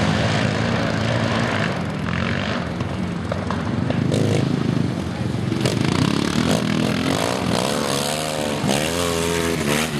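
Sidecar motocross outfits' engines running hard, a fairly steady drone at first. Over the last few seconds the revs repeatedly rise and fall as the throttle is opened and closed.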